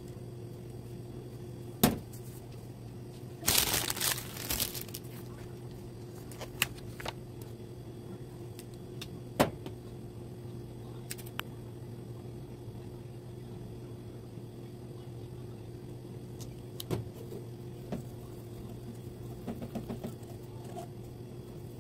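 Gloved hands handling a glass candle jar and sheets of labels: a sharp knock about two seconds in and another near the middle, a second or so of paper rustling just after the first knock, and scattered light ticks, over a steady low hum.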